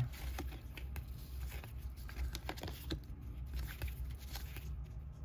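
Stack of 1991 Upper Deck baseball cards being flipped through by hand: a run of soft cardboard slides and light taps over a steady low hum.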